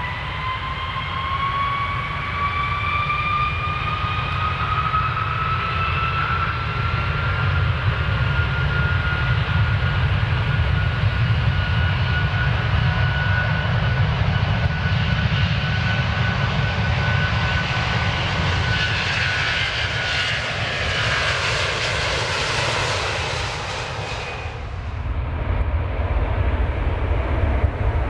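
Airplane engines during takeoff: a whine that rises in pitch over the first several seconds and then holds steady, over a deep rumble. A rushing noise builds to a peak about twenty seconds in, then its high part drops away suddenly a few seconds later, leaving the low rumble.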